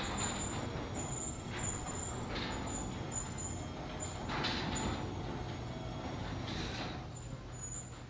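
LiftMaster garage door opener running as it raises a sectional garage door: a steady motor hum with a few short clacks along the way.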